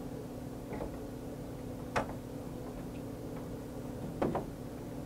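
Short plastic clicks and knocks as printheads are pressed into the carriage of an HP Latex 110 printer: a sharp click about two seconds in, a double click a little after four seconds and a louder knock at the very end, over a steady low hum.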